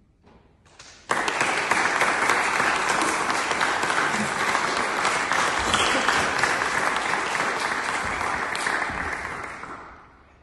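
Small audience clapping. It starts suddenly about a second in and fades out near the end.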